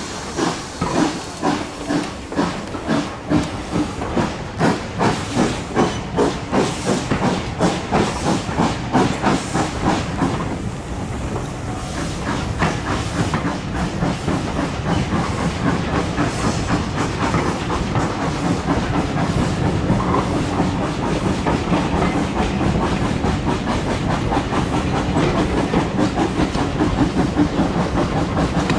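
Exhaust beats of an ex-GWR 0-6-0 pannier tank steam locomotive starting a train away, heard from a carriage window: about two chuffs a second at first, gradually quickening. After about ten seconds the beats blend into the steadier running noise of the train gathering speed.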